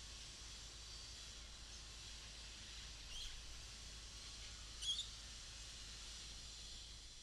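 Steady faint outdoor background hiss with a small bird chirping briefly twice, about three seconds in and again nearly two seconds later.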